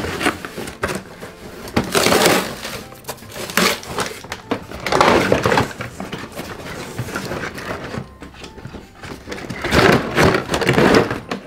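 Cardboard toy-box packaging being torn and pulled apart, with plastic wrap rustling, in several irregular crackling bursts.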